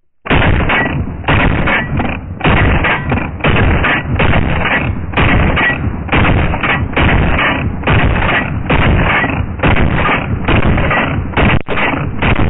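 Rock Island Armory VR80 semi-automatic 12-gauge shotgun firing a fast string of 2¾-inch high-velocity 00 buckshot shells, about two shots a second, starting just after the opening and going on throughout.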